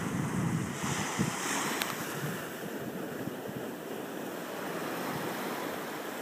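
Small waves washing up onto a sandy beach, with wind buffeting the microphone, heaviest in the first couple of seconds.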